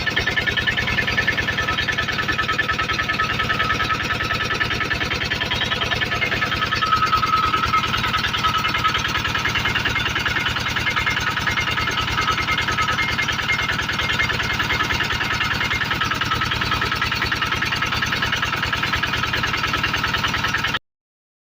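An engine running steadily, its rapid firing pulses even throughout, swelling slightly about a third of the way in, then cutting off abruptly near the end.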